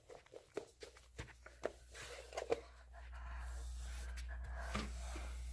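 Handling noise from a phone being moved around: a run of light knocks and rustles, then from about three seconds in a steady low rumble with a hiss.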